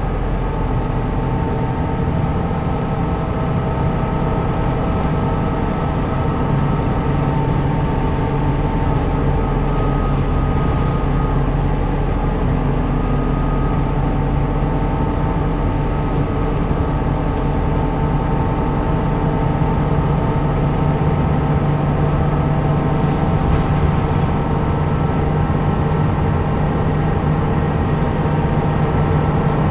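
City bus engine running with a steady drone over road noise, heard from inside the cabin while the bus is under way.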